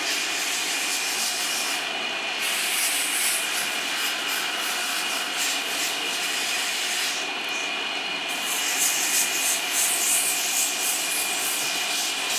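Rubber of a bus tyre being scraped by hand with a small abrasive tool in quick repeated strokes, roughening the area around a crack in the tread for repair. The scraping comes in two spells with a brief pause between them, over a steady background whine.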